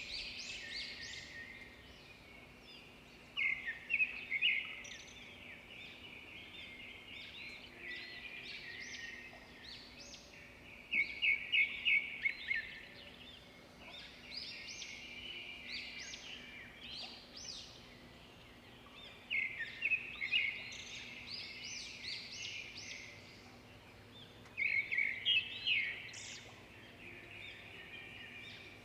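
Songbirds singing in chorus, with many quick high chirps throughout. One bird stands out four times, about every seven or eight seconds, with a louder song phrase of rapid notes.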